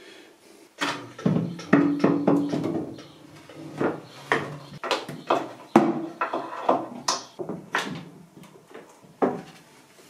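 Irregular wooden knocks, taps and scraping as a glued wooden batten and a wooden board are handled and pressed into place on a washing-machine cover.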